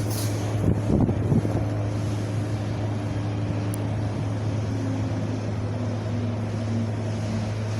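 Wind blowing steadily with a low rumble, with a stronger gust about a second in.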